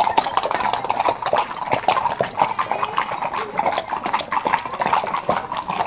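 Hooves of a column of horses clopping on a paved road, a dense, irregular clatter of many hoofbeats.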